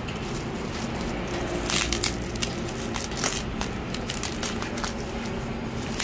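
Bubble wrap and plastic cling film crinkling and crackling as they are pulled and handled around a cardboard box, with irregular sharp crackles throughout.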